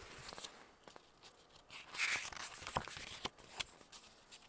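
Pages of a paper booklet being flipped and handled: a short rustle of paper about two seconds in, with a few light clicks and taps around it.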